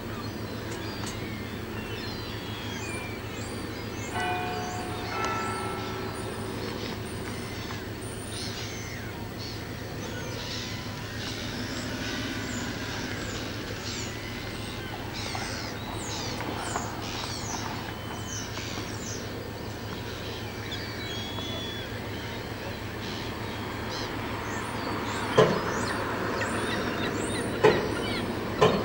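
Harbour ambience: many short, high bird chirps over a steady low hum, with a brief call of several clear tones about four seconds in. Three sharp knocks near the end are the loudest sounds.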